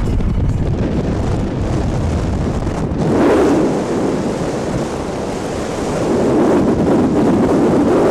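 Wind buffeting the microphone over the low rumble of a truck driving across ice. About three seconds in, the deep rumble eases and a rougher wind rush takes over.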